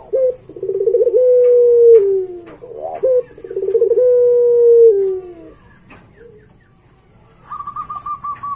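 Puter pelung (domestic ringneck dove) cooing: two long song phrases, each a short note and a quick rolling trill leading into a long drawn-out coo that drops in pitch at its end. Near the end comes a higher, fast pulsing call.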